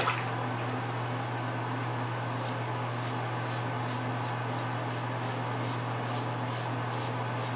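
Dorco Pace six-blade cartridge razor scraping through lathered stubble in short repeated strokes, about two a second, starting a couple of seconds in. A steady low hum sits underneath.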